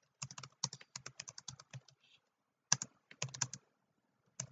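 Typing on a computer keyboard: three quick runs of key clicks, broken by pauses of under a second.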